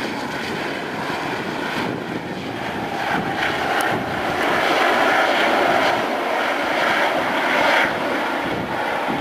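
Eurocopter EC135 twin-turbine helicopter climbing away after takeoff: a steady turbine whine and rotor noise, which grows louder for a few seconds in the middle.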